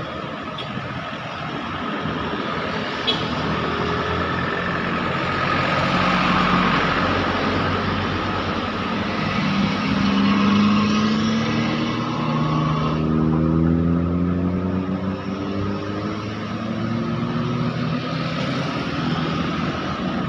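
Heavy diesel road traffic passing, with a large engine accelerating from about ten seconds in, its pitch rising steadily.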